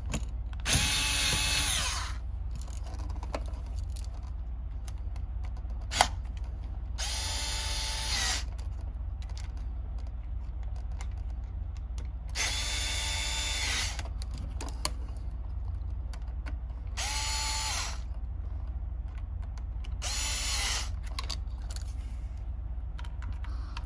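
Small power screwdriver whirring in five short bursts, each spinning up quickly to a steady whine, backing out the screws of an outlet. A single sharp click about six seconds in.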